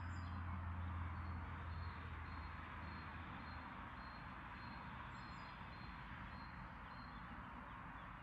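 Faint steady rush of a broad, shallow river flowing, with a low hum that fades away over the first few seconds and two brief bird chirps, one at the start and one about five seconds in.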